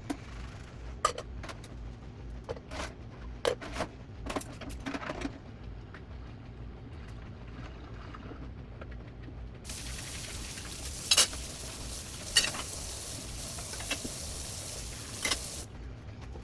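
Household cleaning sounds: a run of light knocks and clatters as items are handled, then a steady rushing hiss that lasts about six seconds and cuts off suddenly, with a few clicks during it.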